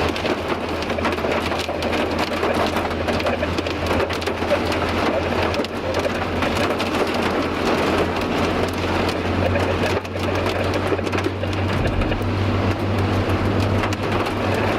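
Light rain hitting a moving vehicle: a dense patter of drops over the steady low drone of the engine and road, the drone getting a little stronger about twelve seconds in.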